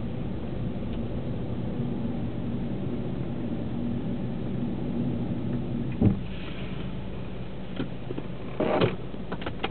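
Cabin sound of a 2009 Vauxhall Astra's 1.8 petrol engine with automatic gearbox, a steady low hum as the car creeps along. About six seconds in there is a sharp thump, and the engine hum drops as the car comes to a halt. A short rasp and a few clicks follow near the end.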